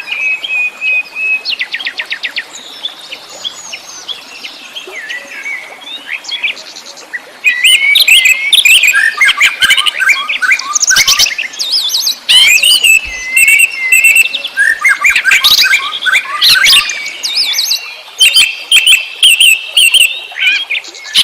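Wild birds chirping and singing, many short calls and trills overlapping; softer at first, then much louder and denser from about a third of the way in.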